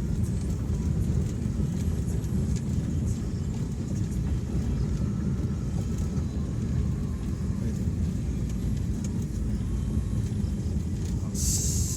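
Steady low rumble of a vehicle on the move, engine and road noise, with a brief high hiss near the end.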